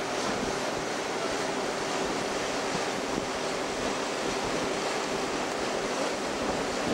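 Steady rushing noise of wind on the microphone and water washing along the hull of a schooner under way, with a faint steady hum underneath.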